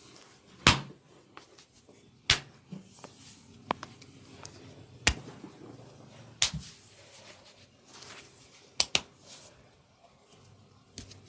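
Sharp smacks and cracks from a hands-on body massage, about half a dozen spread irregularly, two in quick succession near the end.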